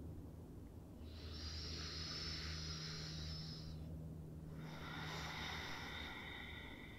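A woman's slow, faint breathing in a resting yoga pose: two long breaths, the first about three seconds, the second about two, over a low steady hum.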